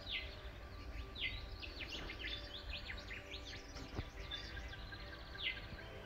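Dawn chorus of several birds singing and chirping, with many quick whistled notes sweeping downward, over a low steady background rumble.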